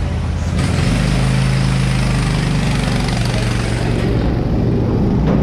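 Small go-kart engine running, growing louder and revving higher about a second in, then holding steady as the hiss eases near the end.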